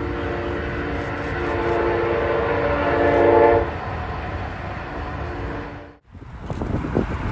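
Diesel freight locomotive's air horn blowing a long chord over the rumble of the train. It swells just before it ends about three and a half seconds in, then gives a shorter, fainter blast. The sound cuts off about six seconds in and gives way to rumble and wind noise.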